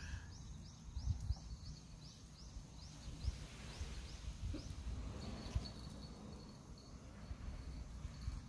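Outdoor background noise: a high chirp repeated evenly about three times a second that fades out around halfway, over a low rumble with a few soft thumps.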